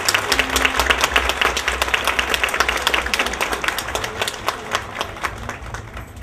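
Audience applauding, thinning out and fading toward the end.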